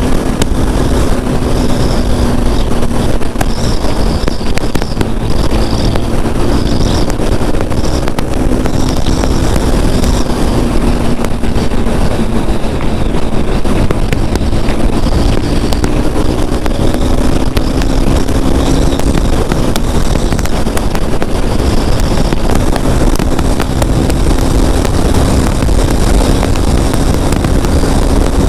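KTM RC 390's single-cylinder engine and exhaust running steadily under load at highway speed. The engine note dips a little a few seconds in, then slowly climbs as the bike picks up speed. Wind rushes over the microphone throughout.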